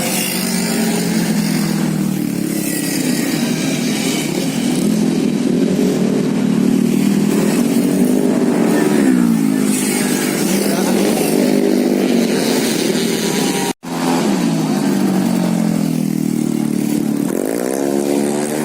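Tuned racing automatic-scooter engine being revved, its pitch swinging up and down repeatedly, with a sharp climb in revs near the end.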